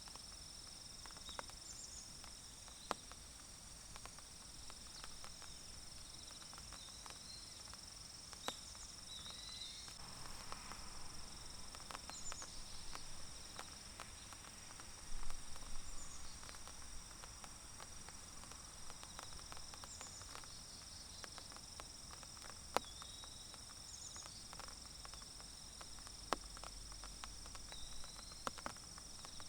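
Faint forest ambience in light rain: a steady high-pitched insect trill over scattered ticks of raindrops dripping, with a few short chirps.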